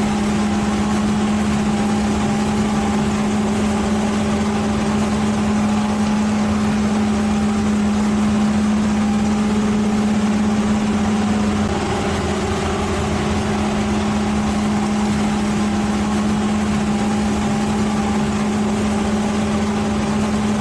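A machine's engine running at a steady speed, a constant droning hum with mechanical noise over it, easing slightly about twelve seconds in.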